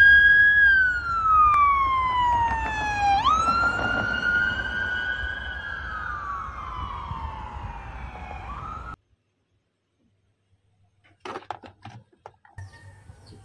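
Police car siren wailing in slow sweeps: its pitch falls, jumps back up about three seconds in, then falls slowly again before cutting off about nine seconds in. After a short silence, a few light clicks and knocks of plastic toy cars being handled near the end.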